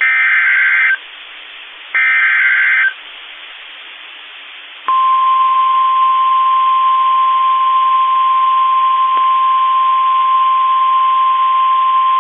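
NOAA Weather Radio emergency alert signal: two roughly one-second data bursts of the SAME (Specific Area Message Encoding) header, about a second apart. After a two-second pause comes the steady 1050 Hz warning alarm tone, starting about five seconds in, which signals that a severe thunderstorm warning is about to be read.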